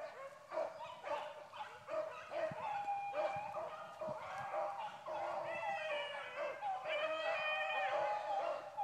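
A pack of beagles baying and yelping together as they run a rabbit's trail, many overlapping calls with no pause, growing fuller in the second half.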